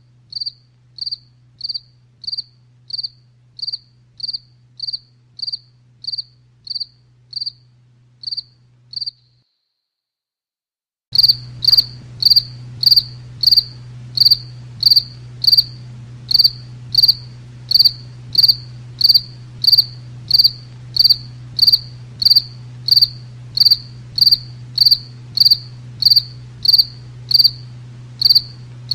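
A cricket chirping in an even rhythm, about two short high chirps a second, over a low steady hum. The chirping stops for about two seconds midway, then resumes louder.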